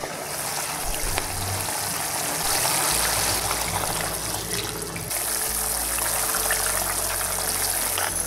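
Braising liquid with beef brisket simmering in a non-stick pan, a steady bubbling hiss; soy sauce is poured into the simmering pan partway through.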